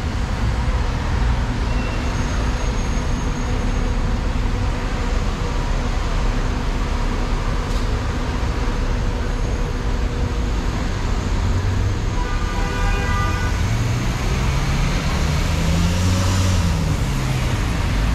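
City street traffic with buses and cars running, a steady low rumble. Near the end one vehicle's engine rises then falls in pitch.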